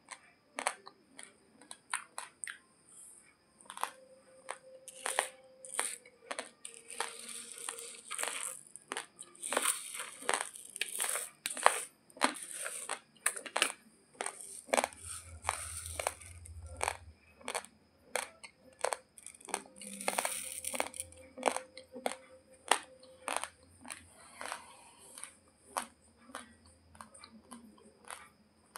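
Close-up chewing of raw, uncooked basmati rice: many sharp, irregular crunches, several a second, as the hard dry grains are bitten and ground.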